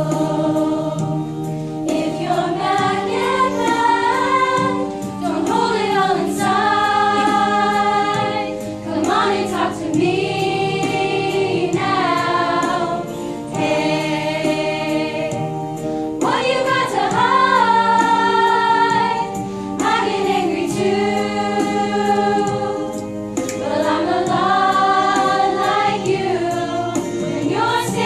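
Show choir singing a pop ballad in several vocal parts, with long held notes over a steady low accompaniment.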